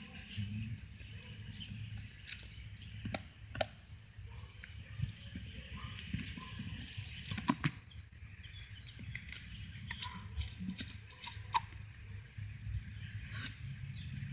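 Redbone Coonhound chewing and mouthing a grill brush in the grass: irregular clicks and crunches of teeth on the brush.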